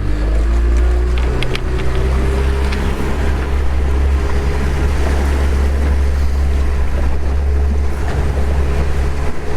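Fishing boat's engine running under way, with its note rising a little over the first few seconds and then holding steady, over a hiss of wind and water.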